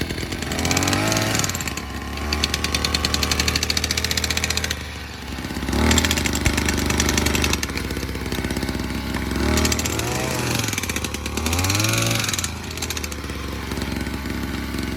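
Small two-stroke engine of a Chinese gas-powered jackhammer running, revved up and back down about four times, with a fast rattling beat between the revs.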